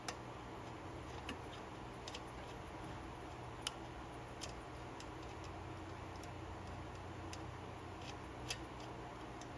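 Scattered light metallic clicks, a few seconds apart and irregular, of small hand tools working on a Honda GCV190 carburetor to remove its center jet, over a faint steady hum.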